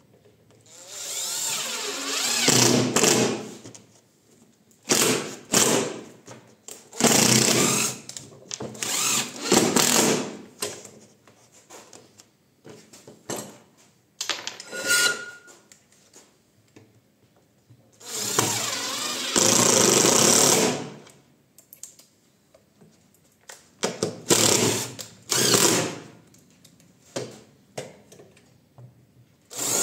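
Cordless drill-driver driving screws in repeated runs of one to three seconds, with short pauses between them.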